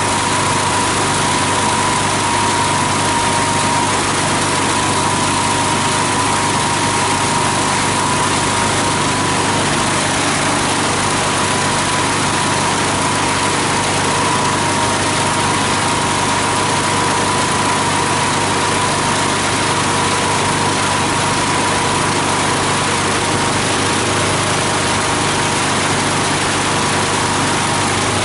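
18 HP diesel engine driving a multi-blade plastic and paper grinder, running steadily with a constant high whine over the engine noise.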